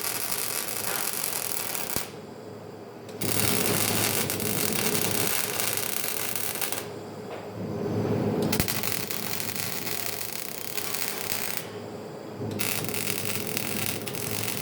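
MIG welding arc crackling in runs, breaking off three times for about a second between runs, over a steady low hum.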